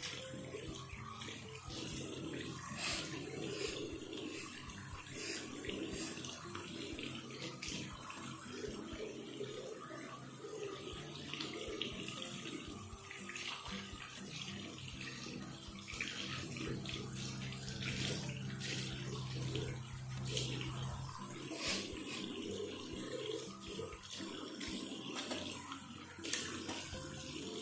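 Water tap running into a bathroom wash basin, with repeated short splashes and nose-blowing as someone rinses and clears their nose over it.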